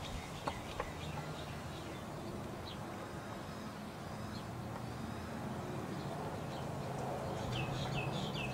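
Background ambience: a steady low hum with scattered short bird chirps, and a quick run of falling chirps near the end. A couple of faint clicks from handling the razor about half a second in.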